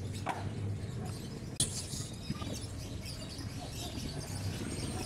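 Stray cats eating dry kibble and drinking water, over a steady low background hum, with one sharp click about one and a half seconds in.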